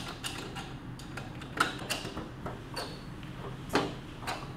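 Wood clamp being tightened onto a fiberglass fender flare and steel fender edge: a string of irregular light clicks and taps, with two louder knocks about one and a half and nearly four seconds in. The clamp is snugged only lightly, just enough to hold the flare in place.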